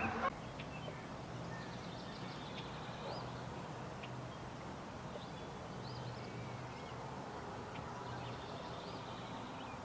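Quiet outdoor ambience: scattered faint bird chirps over a low steady hum. A goose's honking cuts off right at the start.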